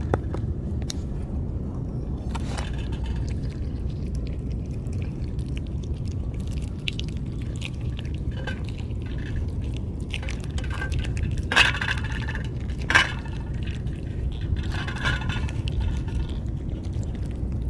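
Cat food being served from cans: clinks and scraping of the tins and dish, with two sharp clicks about two-thirds of the way through, over a steady low rumble.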